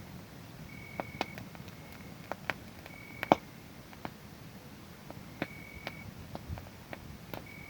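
Wood fire crackling, with scattered sharp pops, the loudest about three seconds in. A cricket chirps over it with a short, steady high trill of about half a second that comes back roughly every two seconds.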